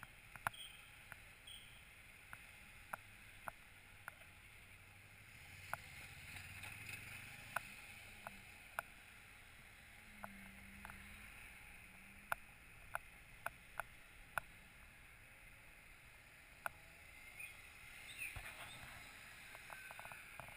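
Faint, muffled street traffic, with a low engine hum swelling now and then and about fifteen scattered sharp clicks.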